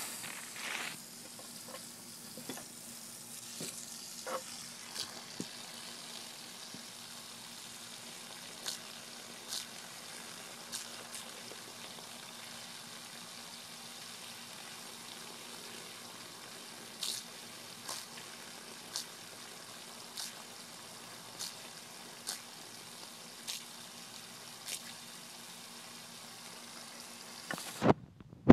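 Garden hose running, its stream of water hissing steadily as it sprays onto the lawn, with scattered short clicks. There is a louder brief rustle near the end.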